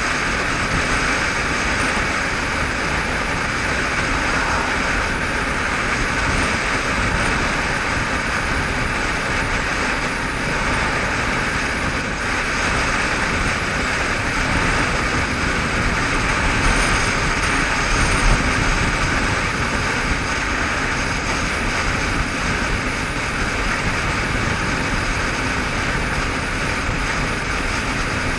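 Steady wind rush and road roar while a Honda CBF500 motorcycle cruises at speed, its 499 cc parallel-twin engine running evenly underneath, heard from a helmet-mounted camera buffeted by the wind.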